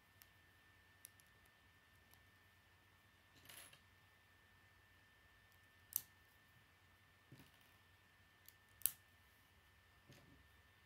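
Small plastic Lego bricks being handled and pressed together: mostly very quiet, with a few scattered soft clicks and a brief rustle, and two sharper snaps about six and nine seconds in.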